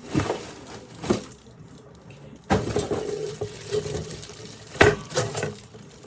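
Knocks and clinks of the black metal can rack's parts being handled and set down during unboxing, several sharp hits with handling noise between.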